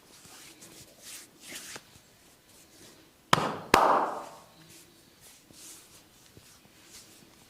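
Barber's hands working a head massage: soft scratching and rustling in the hair, then two sharp, loud smacks about half a second apart, the second ringing briefly.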